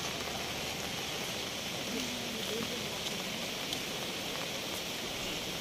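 Steady rushing hiss of a river in flood running high and fast, mixed with rain.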